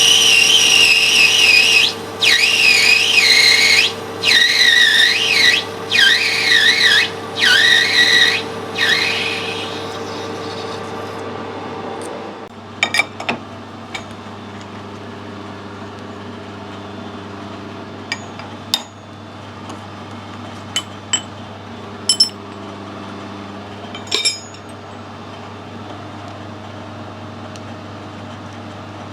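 Metal lathe cutting brass: the tool squeals with chatter in a run of short cuts about a second and a half each. Then the lathe runs on steadily with a few light clicks and taps.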